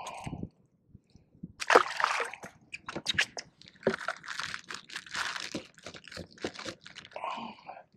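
Water splashing as a small speckled trout goes back into the water, loudest about a second and a half in, followed by a run of irregular splashes and sloshing.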